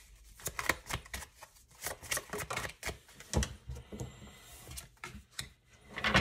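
Deviant Moon Tarot deck being hand-shuffled, a quick irregular run of papery card clicks. It thins out about halfway, with a single knock, and a louder clatter near the end as a card is laid down on the table.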